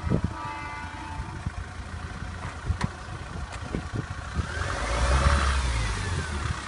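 Mahindra Thar's engine revving under load as it climbs a loose dirt mound: a low rumble whose note rises to a peak about five seconds in and then falls away, with scattered low thumps.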